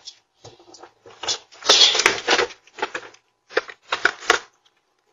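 Irregular clattering and rustling as a baby stroller is handled and pushed out over a doorstep, in short bursts that stop shortly before the end.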